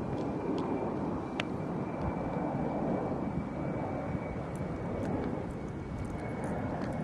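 Aircraft passing over: a steady rushing rumble with a faint high whine held through it.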